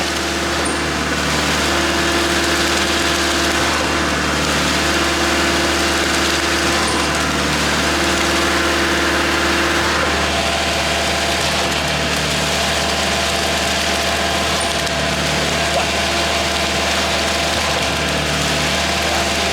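Engine of a concrete mixer truck running steadily at a constant speed, with a low hum and tones that come and go every couple of seconds.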